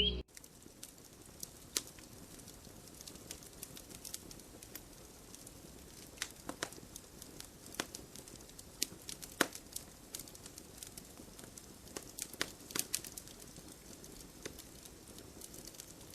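Scattered light clicks and taps, irregular and a few seconds apart, over a faint hiss.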